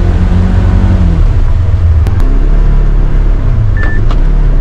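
Polaris Ranger XP 1000 Northstar side-by-side's twin-cylinder engine running steadily on the trail, heard from inside its enclosed cab. The engine note changes about two seconds in, with a couple of sharp clicks, and a few knocks come near the end.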